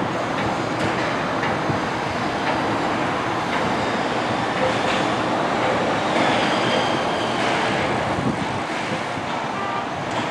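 Train rolling along the track: a steady rumble of wheels on rails with faint scattered clicks.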